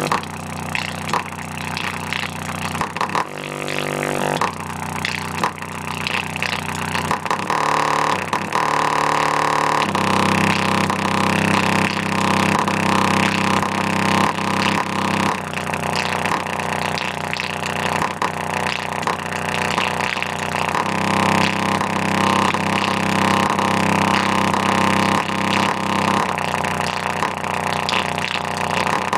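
Bare 6x9 oval car speaker with no enclosure, playing a bass test track loud: held low notes that step to a new pitch every few seconds, with no deep low end.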